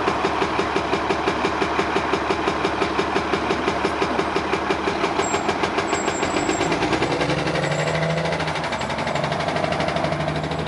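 Orion VII city bus's Cummins ISL diesel engine running with a rhythmic knocking pulse, about four beats a second, the weird sound that made the bus seem about to break down. About seven seconds in the pulsing fades, and a rising engine tone settles into a steady drone.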